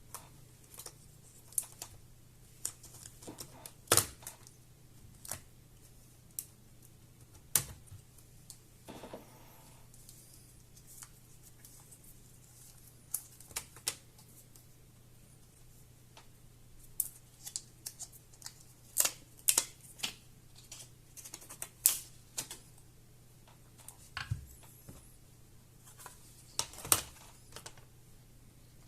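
Irregular sharp clicks and taps of plastic and metal laptop parts and small tools being handled while a Toshiba Satellite C50 is worked on, with quiet gaps between.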